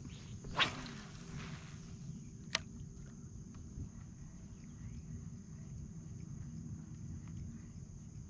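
A fishing rod cast: a sharp swish about half a second in, then a single sharp tick about two seconds later, over a low steady rumble.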